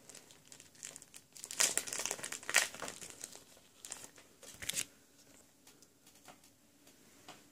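Crinkly plastic wrapper being handled and crumpled, in bursts: the loudest between about one and a half and three seconds in, another shorter one near five seconds, with a few small crackles after.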